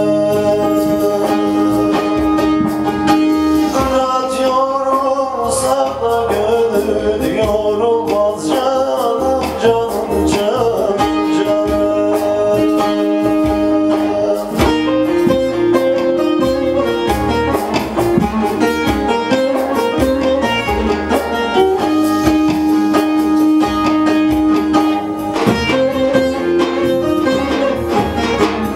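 A man singing a Turkish folk song over loud, continuous plucked-string accompaniment, with sung phrases coming and going between instrumental passages.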